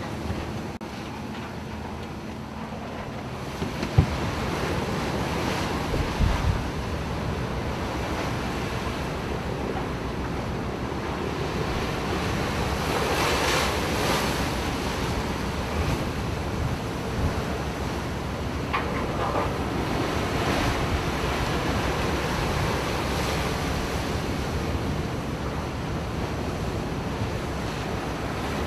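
Sea water washing and waves with wind buffeting the microphone, a steady rushing noise that swells about halfway through. A sharp knock comes about four seconds in.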